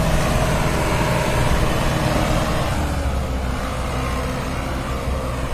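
Mahindra 595 DI tractor's diesel engine running steadily under the load of a heavy trolley; about three seconds in its note drops slightly and gets a little softer.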